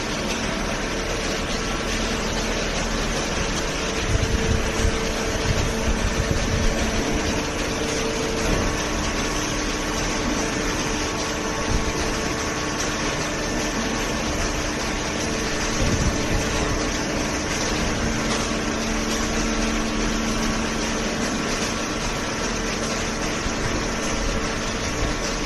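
Vertical cardboard baler's hydraulic pump and motor running with a steady mechanical hum, rumbling a little louder for a few seconds early on.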